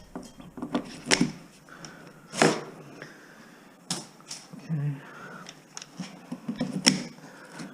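Scattered clicks and knocks of hand work on the wiring of a stripped house wall: copper wire being cut and pulled out, with sharper knocks about one, two and a half, four and seven seconds in.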